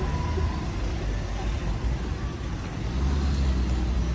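Street traffic with a car engine's low hum, which becomes steadier and stronger about three seconds in.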